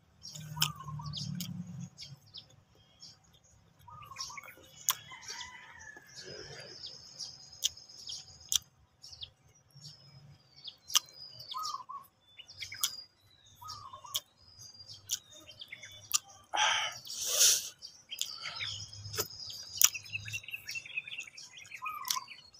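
Close-up eating sounds, wet chewing and lip smacks, of someone eating grilled fish by hand, with birds chirping in short calls throughout. One brief louder noise about three-quarters of the way through.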